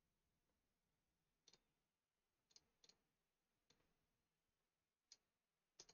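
Faint computer mouse clicks, about six scattered over a few seconds, against near silence.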